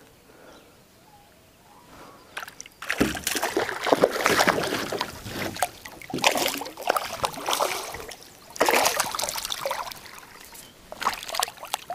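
A hooked smallmouth bass thrashing and splashing at the water's surface beside a canoe as it is reeled in. The splashing starts about three seconds in and comes in several bouts.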